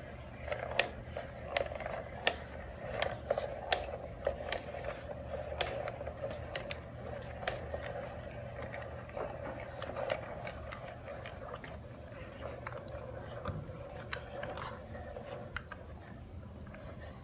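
Hand-cranked wooden automata: cams and followers clicking, knocking and scraping unevenly as the cranks are turned, over a steady room hum.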